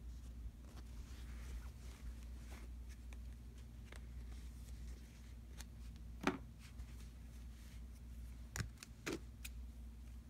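Light handling of a bath mat and plastic shower-curtain hooks, with a sharp click about six seconds in and two more near the end, over a low steady hum.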